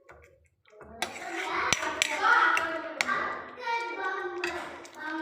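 A person talking, one voice sounding like a child's, with a sharp click a little under two seconds in.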